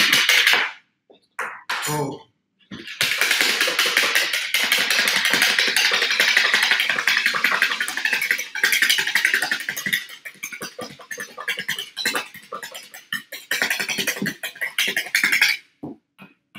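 Egg whites being beaten very fast by hand with a whisk in a plastic bowl: a rapid, steady run of clattering strokes, several a second, pausing briefly near the start and stopping shortly before the end. This is the whipping that airs the egg whites so the pancake comes out soft.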